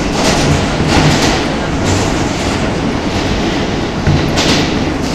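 R160 subway car running, heard from inside the car: a loud steady rumble of wheels on rail, with a few irregular sharper clacks as the wheels pass over rail joints.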